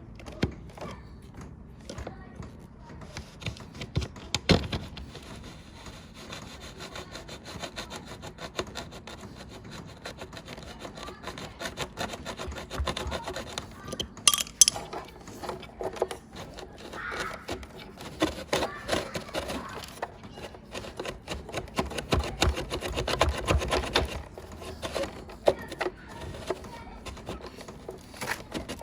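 Irregular hand scraping and scrubbing, likely limescale being cleaned off the water heater's parts, with a few sharper knocks about four and fourteen seconds in.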